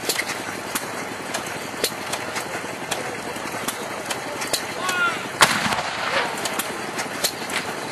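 A 25-pounder field gun firing once: a single loud bang about five and a half seconds in, dying away over about a second.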